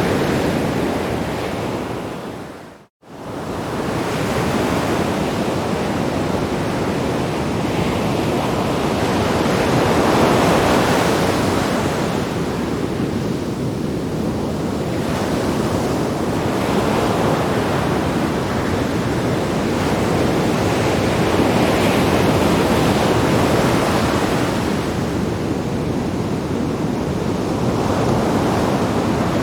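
Sea waves breaking on rocks: a continuous rushing surf that swells and ebbs every five or so seconds. It drops out to silence briefly about three seconds in, then comes back.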